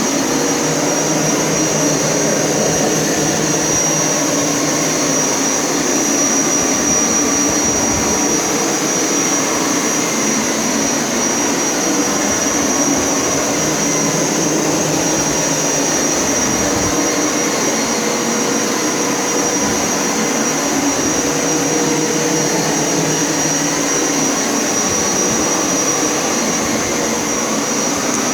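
Hoover Power Scrub Elite carpet cleaner running continuously during rinse passes: a steady high motor whine over a loud, even suction noise, with lower tones that waver slowly as it moves over the carpet.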